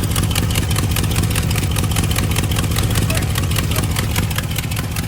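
1982 Ford Bronco's 351 Windsor V8 idling, with a rapid, even ticking over the low engine rumble. The exhaust manifold is missing a couple of top bolts, and the ticking is typical of the resulting exhaust leak.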